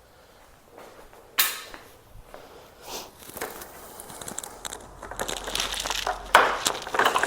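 Plastic motorcycle fairing panels being handled and pulled off: scattered sharp clicks and crinkling rustle, getting busier toward the end.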